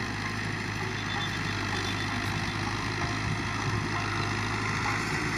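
Fiat 640 tractor's diesel engine running steadily under load while pulling a 16-disc harrow through sand.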